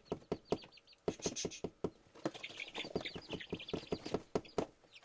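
Young chickens peeping in short high chirps over a quick run of sharp taps, several a second, with the chirping thickening in the second half.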